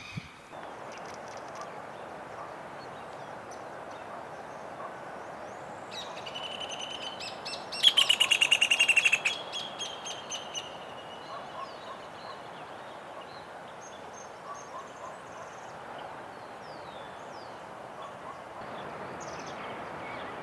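A bird's harsh alarm calls over a steady outdoor hiss: a few calls about six seconds in break into a loud, rapid run of repeated notes lasting about a second and a half, then thin out into scattered faint chirps. These are agitated calls from a bird near its nest as it turns aggressive toward the intruder.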